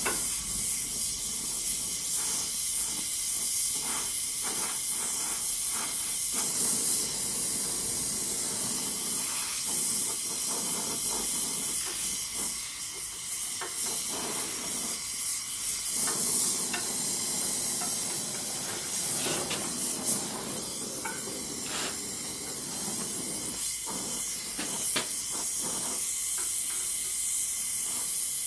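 Oxy-fuel gas torch flame hissing steadily while heating a steel rod and melting a filler rod into the joint, with faint scattered crackles.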